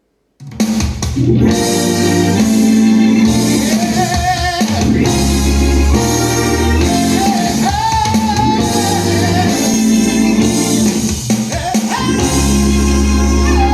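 A song with a sung melody over drums and guitar. It starts after about half a second of silence.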